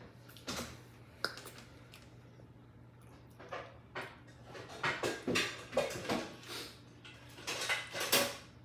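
Kitchen utensils clinking and knocking against a stainless steel mixing bowl, in scattered taps that grow more frequent in the second half.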